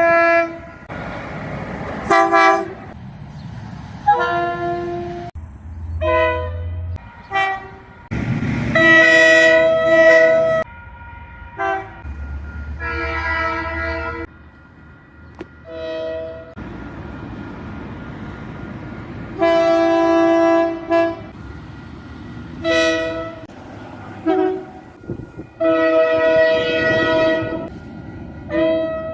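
A run of train horn blasts from different New Zealand locomotives and multiple units, one after another: short toots and longer blasts of one to two seconds, each sounding several notes at once as a chord. A low rumble sits under a few of them.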